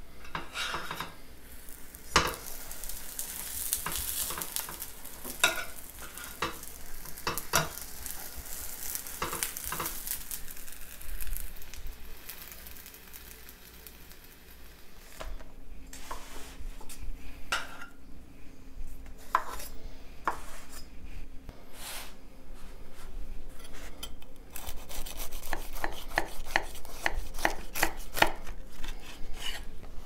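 Rolled tortilla wraps sizzling as they toast in a stainless steel frying pan, with metal tongs clicking and scraping against the pan as they are turned. In the second half, the sizzle gives way to a run of knocks and taps on a bamboo cutting board.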